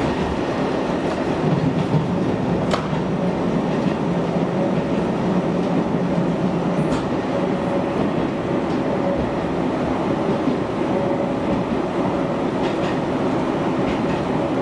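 Running noise heard inside a Hisatsu Orange Railway diesel railcar on the move: a steady rumble of wheels on rail and engine, with a few faint clicks from the track.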